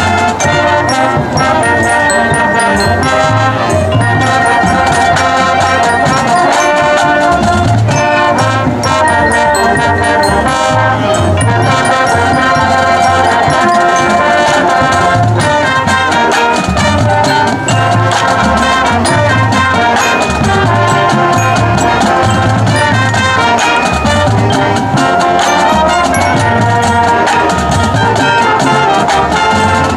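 High school marching band playing: trumpets, trombones and sousaphones hold chords over marching drums and front-ensemble mallet percussion, with a steady bass-drum beat.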